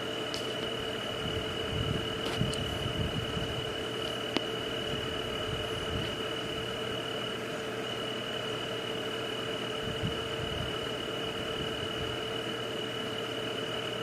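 Night nature ambience: a steady high insect drone over an even hiss, with a lower steady hum beneath and a few faint clicks.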